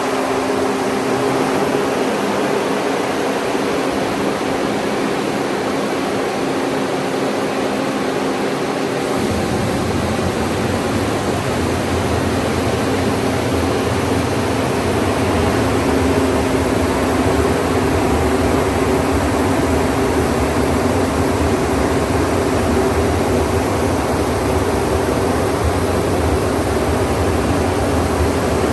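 Corn grain dryer running loud and steady just after being switched on, its fan motor holding a steady whine. About nine seconds in a deep low rumble joins it and carries on.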